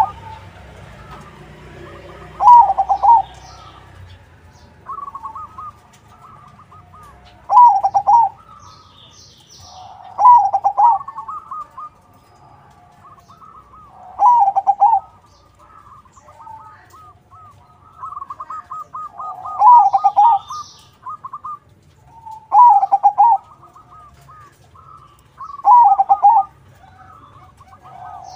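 Crossbred zebra dove (perkutut crossing) cooing: a loud rolling coo phrase about every three to five seconds, with softer trilled coos between them.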